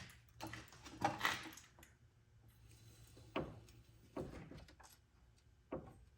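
A handful of separate, irregular metal clanks and knocks from hand tools working on a car's front suspension, the loudest about a second in.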